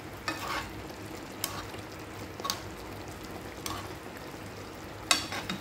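Salmon in a soy, honey and oyster-sauce glaze simmering in a pan with a steady low sizzle, and about five light clicks of a metal spoon against the pan as olives are spooned in, the loudest near the end.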